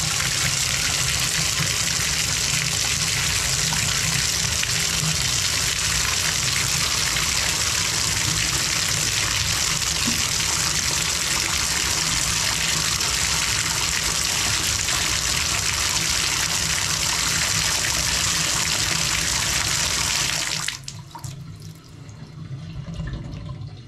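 Bathtub faucet running at full flow into the tub, a steady rush of water that is shut off suddenly about 21 seconds in.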